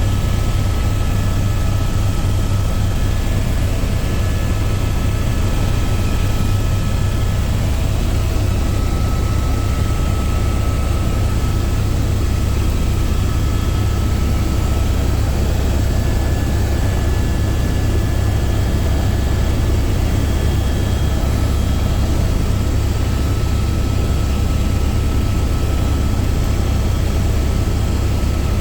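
Helicopter engine and rotor noise, loud and steady with a deep low rumble and a few faint steady whining tones above it.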